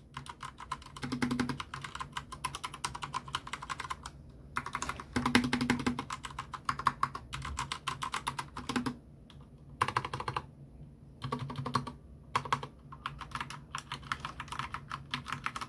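Corsair K70 RGB TKL mechanical keyboard with Cherry MX Speed Silver linear switches being typed on, rapid keystrokes in bursts broken by short pauses.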